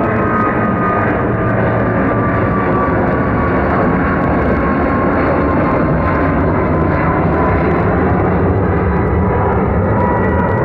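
Boeing 777-200ER's twin Rolls-Royce Trent jet engines at takeoff power, a loud steady roar with a whine that slowly falls in pitch.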